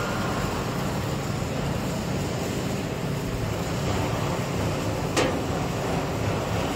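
Steady hum and hiss of workshop background noise, from machinery or ventilation. A single sharp click about five seconds in.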